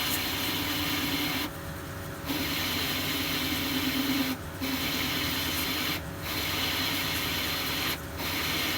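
Metal lathe turning at about 260 rpm with the tool cutting steel: a steady scraping hiss over the lathe's hum. The cutting noise breaks off briefly several times. The speed is one the machinist judges to give acceptable chips, after a higher speed proved far too fast.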